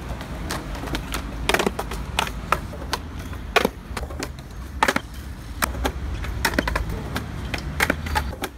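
Skateboard on concrete: urethane wheels rolling with a low rumble, broken by a string of sharp clacks and slaps as the board is popped, strikes the ground and clatters away on bailed 360 flip attempts.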